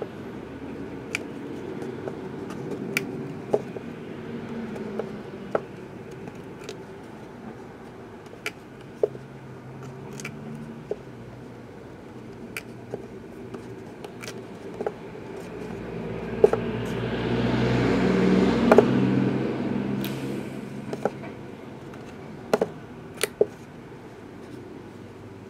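Room background with scattered light clicks, and a noise that swells and then fades over about five seconds in the second half.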